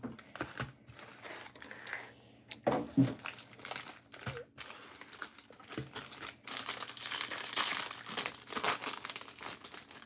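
Plastic wrapping crinkling and tearing as a sealed box of Bowman Draft baseball cards is unwrapped by hand, with small handling clicks; the crinkling is loudest in the second half.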